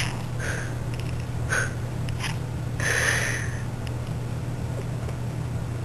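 Kitten making short chittering meow calls, a few quick chirps followed by one longer call about three seconds in.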